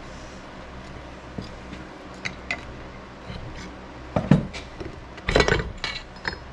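Metal clinks and knocks from a screwdriver and the cast-metal halves of a snowmobile's Diamond Drive gearcase as the case is split apart: a few light taps, then two louder clatters near the end.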